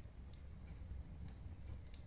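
Wood fire crackling in a fireplace: scattered small pops and ticks over a low, steady rumble of the flames.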